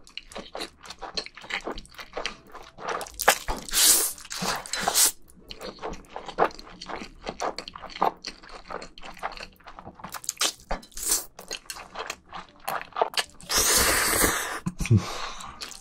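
Close-miked slurping and wet chewing of jjajangmyeon (black bean noodles): a dense run of mouth smacks and sucking sounds, with one long slurp about three-quarters of the way through.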